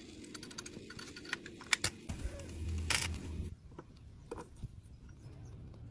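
Light clicks and taps over a low hum, with a louder short burst near the middle; the hum stops about three and a half seconds in.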